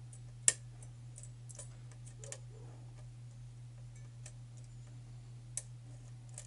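Faint, irregular clicks and taps of a thin steel lock pick working the pins inside the tight paracentric keyway of a pin-tumbler challenge lock, with one sharper click about half a second in. A steady low hum runs underneath.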